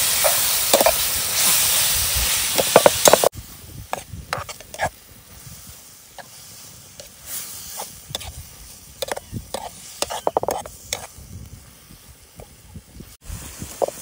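Chutney ingredients sizzling as they fry in oil in a pan, with a spoon stirring and scraping against the metal. About three seconds in, the sizzle cuts off abruptly, and only scattered light clicks and taps remain.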